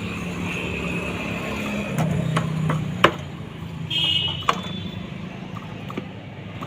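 Several sharp metallic clicks and taps of a spanner working a nut and bolt on a TVS XL100 moped engine's casing while it is being tightened, the loudest about three seconds in, over a steady low background hum.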